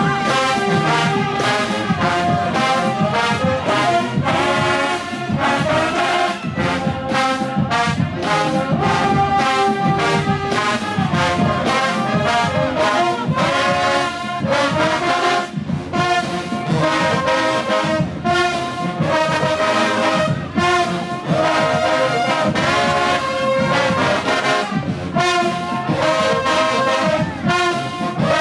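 A show-style marching band playing full out: a massed brass section of trumpets and trombones blaring a rhythmic tune, punctuated by regular sharp drum hits.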